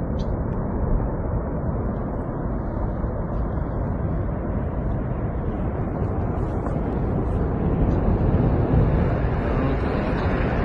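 Avalanche of snow and ice rumbling down a mountainside: a deep, steady noise that swells a little near the end.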